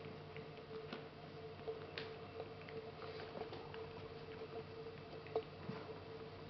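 Faint, soft wet clicks and rustles of a cat licking and grooming a kitten on a fabric cushion, with one sharper click about five seconds in.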